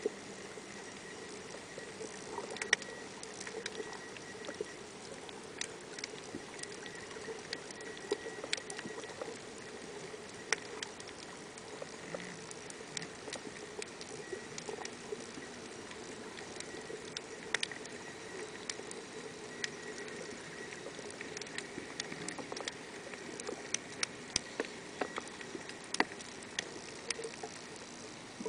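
Underwater ambience heard through a camera's waterproof case: scattered sharp clicks at irregular intervals, one to a few a second, over a steady low hum and a faint high tone.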